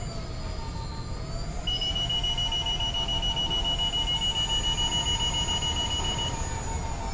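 Electric unicycle held off the ground with its hub motor spinning up, a whine that rises over the first couple of seconds. Then the wheel's speed alarm sounds: a long steady high beep lasting about four and a half seconds over a quicker pulsing lower beep. The alarm marks the motor reaching its set PWM load threshold in a lift test.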